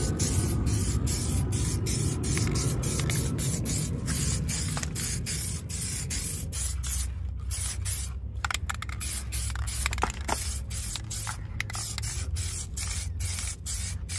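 Aerosol spray can hissing as seat paint is sprayed onto a leather rear seat cushion, in a long run of sprays broken by many brief pauses.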